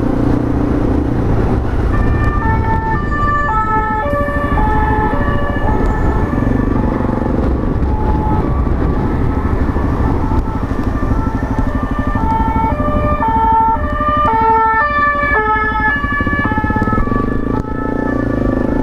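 French-style two-tone emergency siren, switching back and forth between a high and a low note, over the steady running of a small single-cylinder motorcycle engine in traffic.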